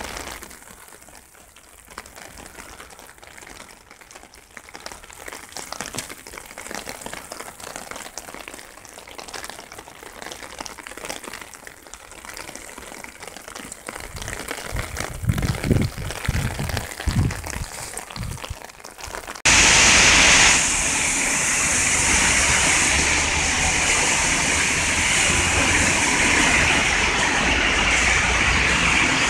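Faint uneven noise with a few low thumps, then suddenly, about two-thirds of the way in, heavy rain pouring steadily onto pavement as a loud, even hiss.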